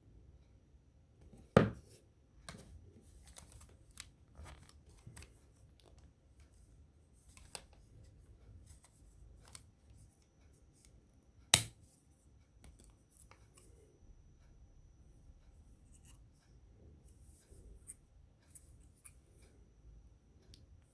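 Phone packaging and accessories being handled during an unboxing: small clicks, taps and rustles, with two sharp snaps, one about a second and a half in and one about halfway through.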